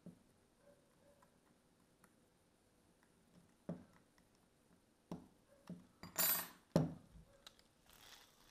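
Handling noise from a Daiwa 7HT Mag baitcasting reel being reassembled by hand: scattered small clicks and knocks of the handle and its fittings, with a brief scrape about six seconds in and a sharper knock just after it.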